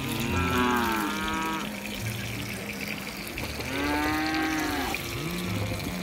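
A cow mooing twice, each call about a second and a half long with a pitch that rises and falls.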